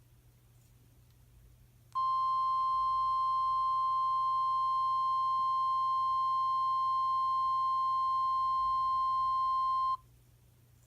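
Emergency Alert System attention tone from an EAS test app: one steady, loud, high-pitched tone that starts about two seconds in, holds for about eight seconds and cuts off sharply.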